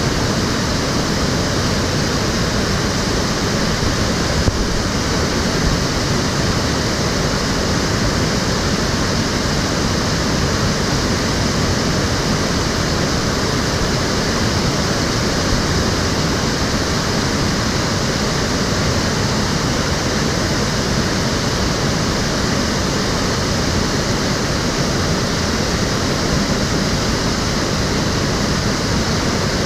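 Steady rushing of stream water flowing over the low steps and stones of an urban channel, an even unbroken noise, with a single faint click about four seconds in.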